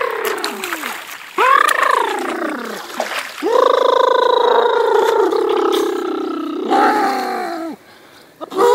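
Young men's voices imitating animal calls, long drawn-out moaning cries. One call fades out at the start, an arching cry follows about a second and a half in, then a long held cry runs from about three and a half seconds to nearly eight, with a second voice joining near its end and a new cry starting just before the end.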